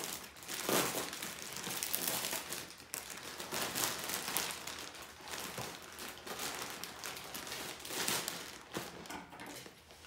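Thin clear plastic bag crinkling and rustling in irregular surges as hands grip, pull and work it open.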